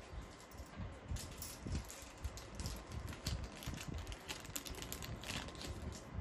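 Rapid, irregular light clicks and rattles of small hard objects being handled on a desk, with a low rumble underneath.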